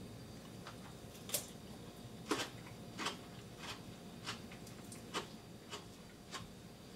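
Crisp crunching of a raw radish dipped in melted cheese as it is chewed: about ten short crunches a little over half a second apart, the loudest two in the first half.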